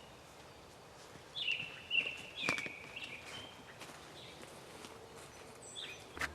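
A songbird calling outdoors: a run of clear whistled notes gliding up and down, with a shorter call near the end. Two sharp clicks cut in, about two and a half seconds in and just before the end.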